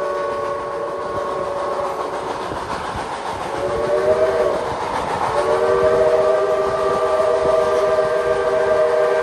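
Baldwin 4-6-2 steam locomotive's whistle sounding a chord of several tones over the rumble of the train. A long blast trails off, a short blast follows about three and a half seconds in, then another long blast starts and is held: the grade-crossing signal for an approaching road crossing.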